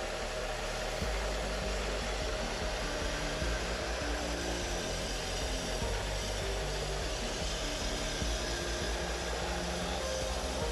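Water spray from a cleaning wand hissing onto the evaporator coil of a split-type air conditioner's indoor unit, over a steady low machine hum that grows stronger about a second in.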